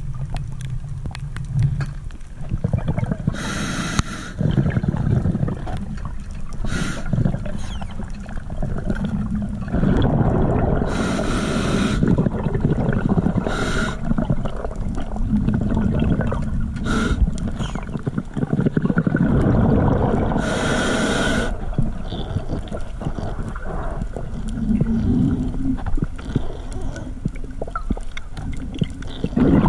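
Scuba diver breathing through a regulator underwater: a sharp hiss on each inhalation every few seconds, with bubbly rumble between, over the steady low rush of water on the camera housing.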